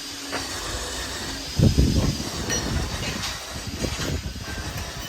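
Jackhammer running and hammering, getting much louder about a second and a half in as it bites.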